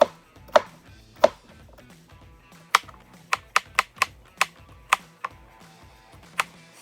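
A knife dicing a pepper on a cutting board: about a dozen sharp, uneven chops, quickest in the middle, over faint background music.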